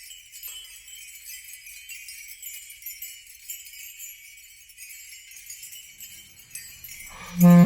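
Opening of a song: sleigh bells jingling on their own, then about seven seconds in a much louder melody with a bass line comes in.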